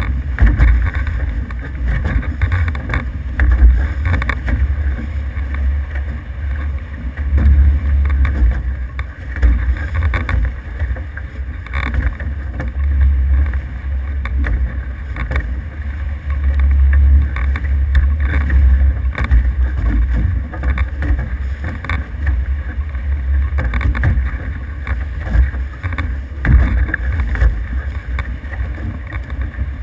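Wind buffeting the microphone heavily, over water splashing and rushing past the hulls of an F18 racing catamaran under sail.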